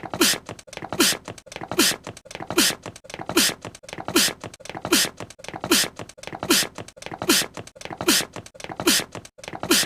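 An anime character's voiced sneeze, looped: the same short sneeze repeats about thirteen times at an even pace, each one a breathy hiss with a brief voiced note that drops in pitch.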